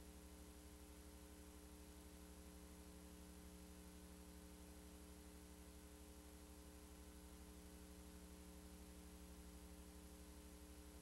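Near silence: a faint steady electrical hum over hiss, unchanging throughout.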